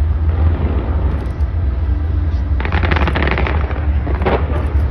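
Fireworks going off: a heavy low rumble of booms, with a burst of rapid crackling about two and a half seconds in and another short crackle near the end.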